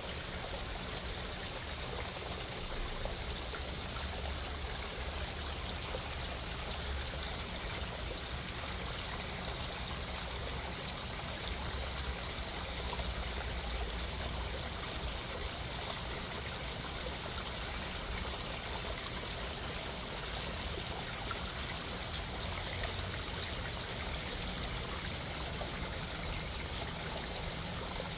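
Small rock waterfall trickling and splashing steadily into a garden koi pond.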